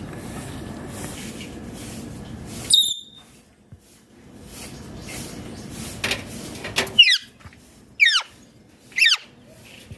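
Indian ringneck parrot calling: a short high shriek about three seconds in, then three sharp squawks about a second apart near the end, each falling steeply in pitch.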